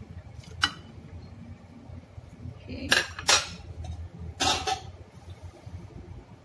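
Metal ladle clinking against a large aluminium cooking pot, a few sharp separate clinks: one early, two close together about three seconds in, and one more a second and a half later.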